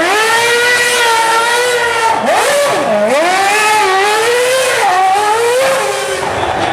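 Formula 1 car engine held at high revs under throttle, its pitch dipping sharply about three seconds in and climbing straight back, then wavering again near five seconds, with a steady hiss of tyre noise under it.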